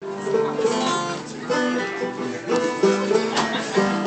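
Acoustic plucked string instruments, guitar and banjo-like picking, playing a quick tune that starts abruptly.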